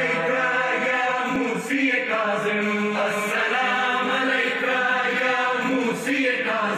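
A voice chanting a devotional recitation in long held phrases, breaking briefly between phrases about two seconds in, about three seconds in, and again near the end.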